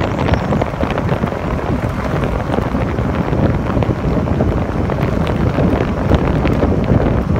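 Loud, steady wind rushing and buffeting over the microphone as it moves along the road.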